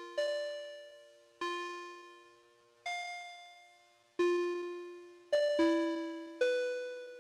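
Slow, sparse background music: soft keyboard notes, mostly two-note chords, struck about once every second and a half, each ringing out and fading before the next.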